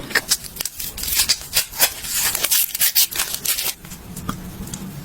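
Close-miked eating sounds: crisp crunching and crackling of food being bitten and chewed, a dense run of sharp clicks between about one and four seconds in.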